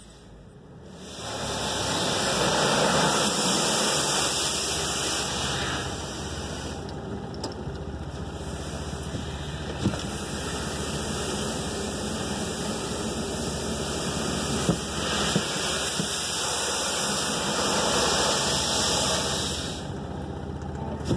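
Automatic car wash spraying water over the car, heard from inside the cabin: a steady rushing hiss that swells up about two seconds in and eases off briefly a couple of times.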